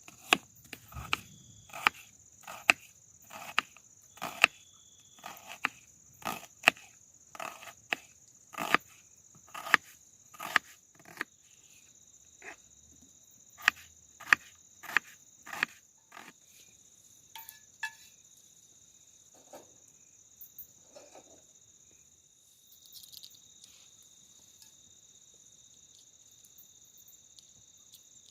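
Crickets trilling steadily, with a run of sharp knocks, about one a second, through the first half; the knocks thin out to a few scattered taps and stop, leaving the crickets alone.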